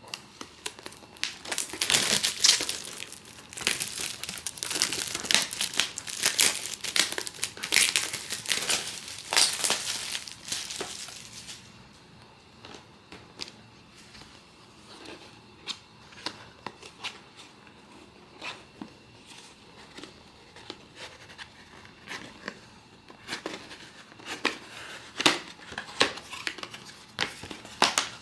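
Packaging of a Pop Mart MEGA SPACE MOLLY blind box being handled and opened: dense crinkling and tearing for about the first eleven seconds, then sparser rustles and clicks, then more crinkling near the end.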